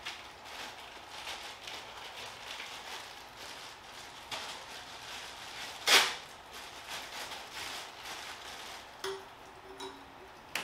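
Plastic packaging of an exhaust gasket crinkling and rustling as it is handled and opened, with one louder sharp crackle about six seconds in.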